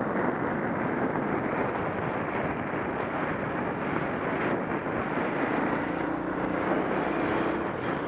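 Trail motorcycle running at a steady cruise, heard from the moving bike, with wind rushing over the microphone.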